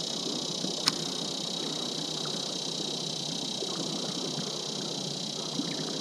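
Steady outdoor background: a constant high-pitched hum over a low rustling noise, with one sharp click about a second in.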